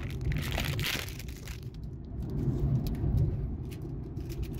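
Plastic snack bag crinkling as it is worked open, loudest in the first second, then lighter crackles, over the steady low rumble of a car.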